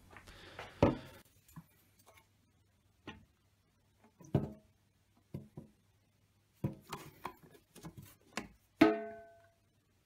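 Water from a plastic washing-machine drain U-bend splashing into a stainless steel sink, briefly at the start. Then a series of knocks as the plastic pipe bumps against the steel sink, several ringing briefly, the loudest near the end.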